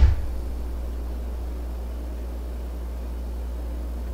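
A steady low hum, with one sharp knock right at the start that dies away quickly.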